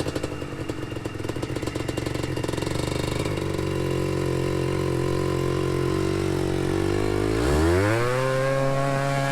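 Yamaha Blaster ATV's single-cylinder two-stroke engine running at low revs, then revving up sharply near the end and holding the higher revs.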